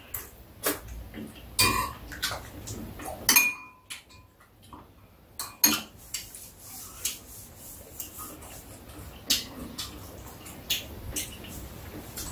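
Metal spoon and chopsticks clinking against ceramic bowls while eating: a scatter of sharp clicks, one ringing clink a little after three seconds in, then a short lull before the clicks resume.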